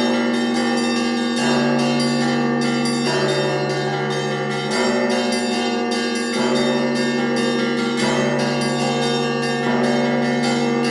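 Church bells ringing a Russian-style peal (kolokolny zvon): many bells sounding at once, quick strokes of small bells over the steady hum of larger bells, in a pattern that repeats about every second and a half without a break.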